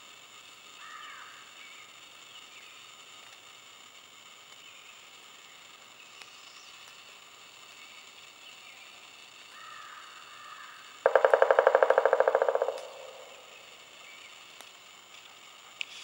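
Pileated woodpecker drumming on wood: one rapid, even roll of strikes lasting under two seconds, about eleven seconds in, trailing off at the end.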